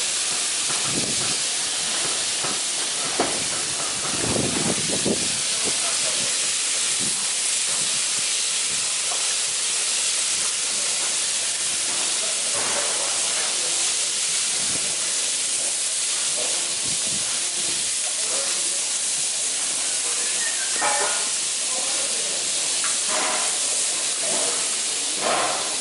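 Steady hiss of minced-meat skewers sizzling on a hot flat-top griddle, with faint background voices now and then.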